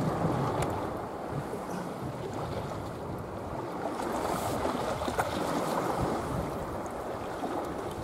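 Steady rushing noise of sea water moving and wind on the microphone.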